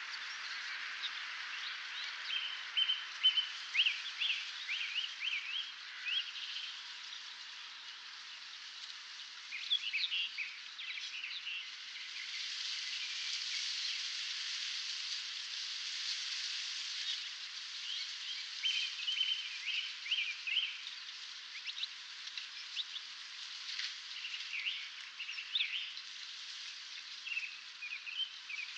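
Dawn chorus of songbirds, with chirps, calls and runs of quick repeated notes over a steady background hiss.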